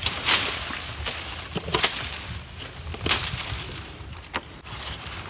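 Splashing and sloshing of hands and feet in a shallow, muddy ditch while feeling for catfish, with about four sharp splashes.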